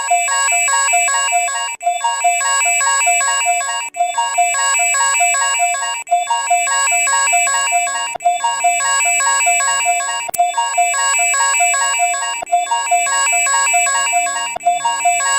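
Electronic emergency alert alarm tone: a fast run of synthetic beeps on several pitches, the pattern repeating about every two seconds.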